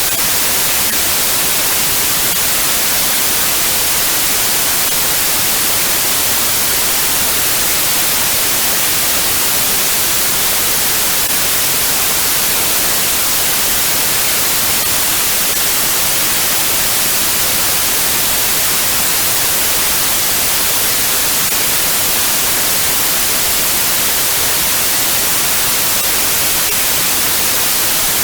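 Steady white noise: an even, unbroken hiss, strongest in the treble, that does not change.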